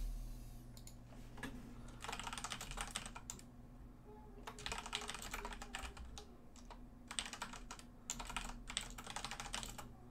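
Typing on a computer keyboard: about five short bursts of rapid key clicks with pauses between them.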